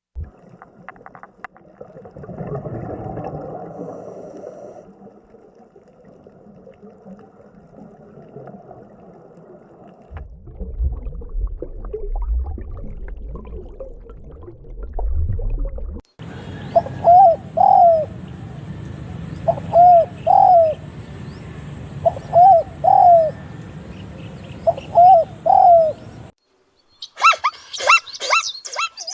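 A dove cooing in four short repeated phrases over a steady hiss, preceded by a stretch of indistinct low noise and a deep rumble. Near the end come rapid high bird chirps.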